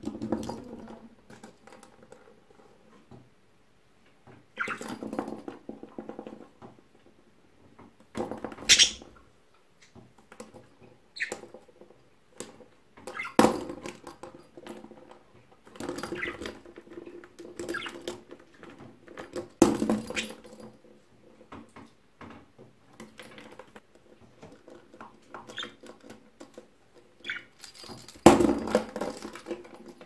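Budgie scrabbling and pecking about the seed-strewn cage floor, knocking its toys, in irregular bursts of scratching and rattling with a few sharp knocks.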